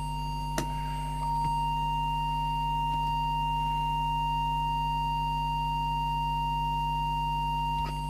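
A steady, high-pitched audio test tone at one unchanging pitch, used to modulate a CB radio's FM transmitter while its deviation is adjusted. A low steady hum lies under it, with a single click about half a second in.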